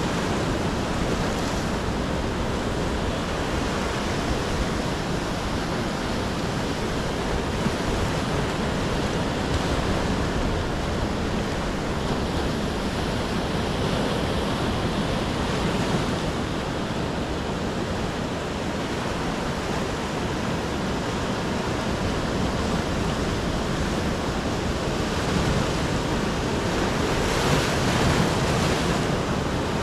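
Ocean surf: waves breaking and washing in as a continuous rush, growing louder near the end.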